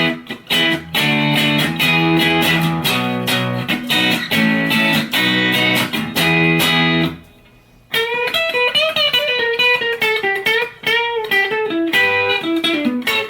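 Electric guitar played through a Surfyman Brownface-amp emulator pedal straight into a guitar amp with no reverb: strummed chords for about seven seconds, a brief pause, then a single-note lead line with bends and vibrato.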